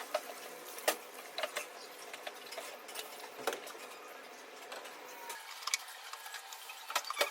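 Food cooking in a pan with a steady sizzling hiss, and irregular clicks and taps of a utensil against the pan.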